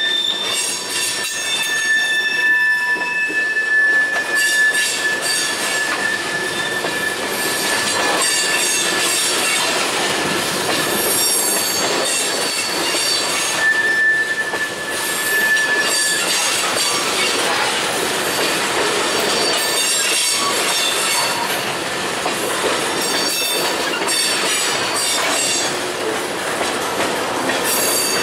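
Freight train tank cars rolling past, steel wheels clicking over the rail joints, with a long high-pitched wheel squeal through the first few seconds and again about halfway through.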